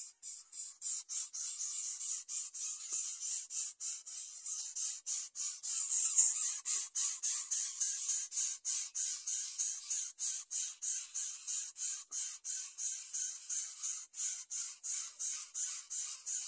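Greater coucal chicks giving hissing, rasping begging calls for food in a fast, even rhythm, about four a second.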